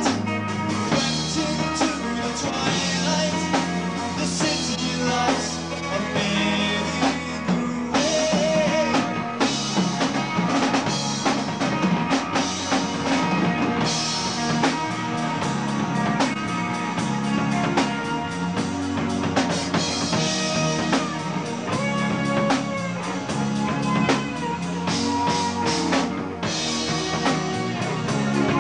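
Live rock band playing a full-band passage of a progressive rock song: drum kit, electric guitar and bass guitar together.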